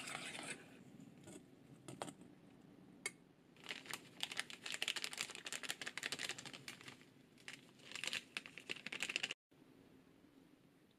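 A spoon scraping in a steel mixing bowl for a moment, then a small plastic bag of bonito flakes crinkling as it is handled and shaken out over the bowl, from about four seconds in for some five seconds, cutting off suddenly.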